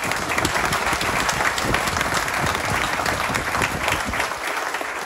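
Audience applauding: many hands clapping steadily, easing off near the end.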